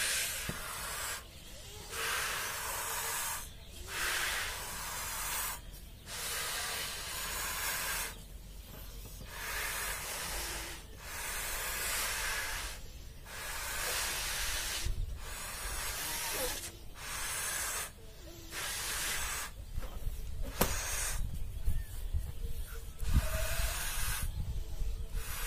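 Balloons being blown up by mouth: repeated airy puffs into the balloons, each a second or two long, with short breaks to breathe in between. Some rustling and knocks come in over the last few seconds.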